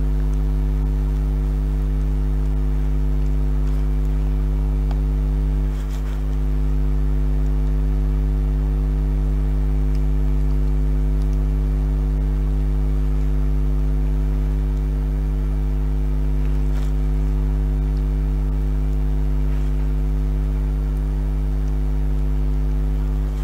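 Steady low electrical hum, a mains-frequency buzz with a stack of even overtones, dipping briefly about six seconds in.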